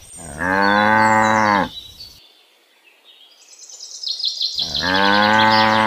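A cow mooing twice, a long low moo of about a second and a half near the start and another near the end, with birds chirping faintly in between.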